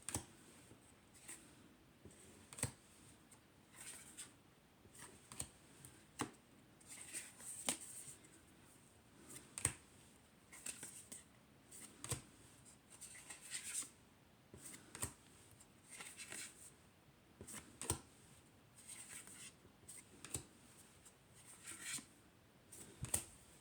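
Tarot cards being picked up and laid down one at a time, each giving a soft papery snap or slide about every second or so.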